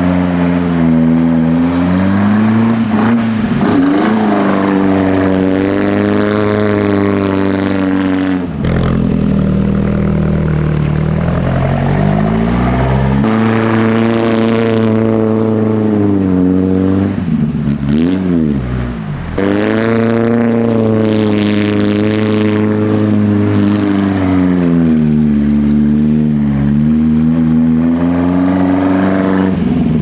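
Toyota Hilux pickup's engine revving hard and holding high revs as the rear wheels spin through donuts in the snow. The revs swell and sag in long sweeps, dropping off sharply about a third of the way in and dipping briefly again a little past halfway before climbing back.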